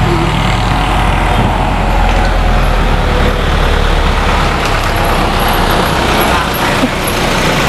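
Isuzu Elf box truck's diesel engine running as the truck drives up and comes close, a steady low rumble.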